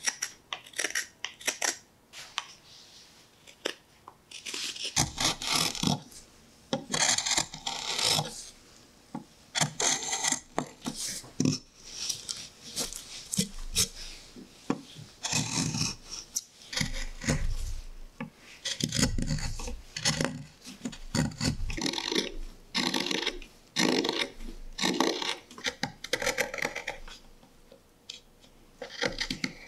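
A gouge scooping out the bowl of an American chestnut spoon: a run of short scraping cuts through the wood, roughly one a second, with a brief pause early in the run.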